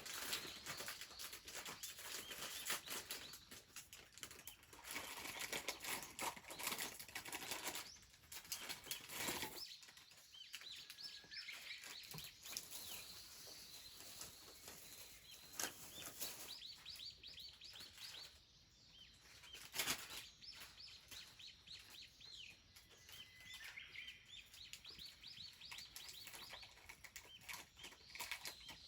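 Small wild birds calling, with several series of quick rising high notes in the latter two-thirds. Scattered clicks and rustling fill the first third, and there is one sharp click about twenty seconds in.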